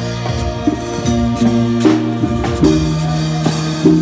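Live cumbia band playing, with keyboard notes held over drum kit and hand percussion strikes.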